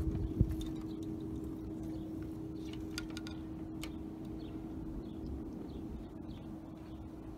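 Bell made from a cut-down steel oxygen tank, ringing on with one steady hum that slowly fades. A single knock sounds about half a second in.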